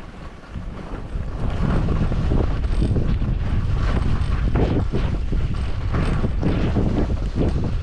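Skis scraping and chattering over chopped-up, lumpy snow while skiing, with wind buffeting the microphone. It gets louder about a second and a half in and stays loud.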